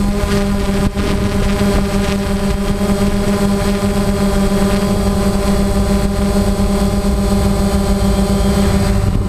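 Multirotor camera drone's motors and propellers whining at a steady pitch, heard close up from the drone's own camera, with wind noise underneath. The whine changes and fades just before the end.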